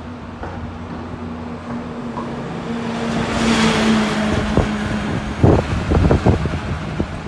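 A light crane-tray truck drives past close by, its engine running steadily and growing louder to a peak about three to four seconds in, with its passing whoosh. As it moves off, a quick cluster of knocks and rattles follows.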